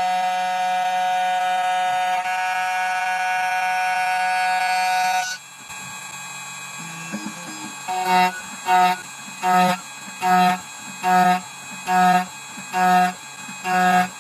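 Electronic tones: a steady buzzing tone for about five seconds, then, after a short lull, evenly repeating beeps, about one and a quarter a second.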